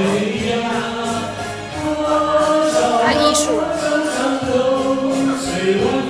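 A group of voices singing a song together, with instrumental accompaniment and a steady beat.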